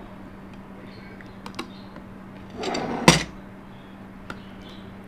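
Metal knife and cake server scraping and clinking against a ceramic plate as a slice of set pudding is cut free and lifted: a few light clicks, then a short scrape about two and a half seconds in ending in a sharp clack. A steady low hum runs underneath.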